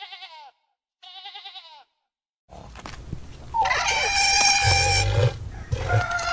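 Sheep bleating twice, each bleat short and quavering. After a brief pause, louder animal calls with a deep low rumble begin.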